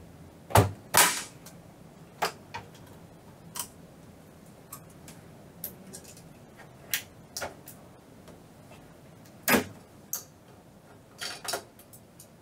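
Scattered sharp clicks and clacks of small metal and plastic parts being handled while a PlayStation 5 is taken apart: cables unhooked and a metal shield plate worked loose from the main board. About a dozen, irregular, with two loud ones in the first second and another about two-thirds of the way through.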